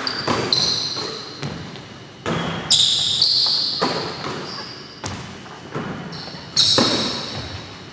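Basketballs thudding on a hardwood gym floor, each impact echoing in the hall, several times. High squeaks from sneakers on the floor come in between.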